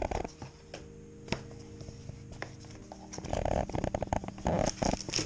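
Handling noise of kitchen items on a worktop: a few light clicks and knocks at first, then a busier run of clattering knocks in the last two seconds, over a steady low hum.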